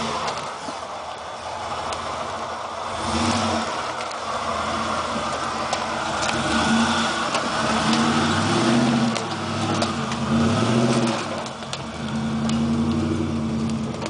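Lifted pickup truck's engine revving in repeated surges as it crawls over a rough forest trail, with a few sharp cracks now and then.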